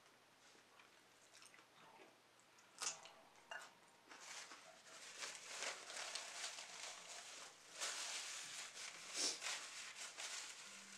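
A person chewing food with her mouth close to the microphone, with two sharp clicks about three seconds in, then a paper napkin rustling as she wipes her mouth and hands.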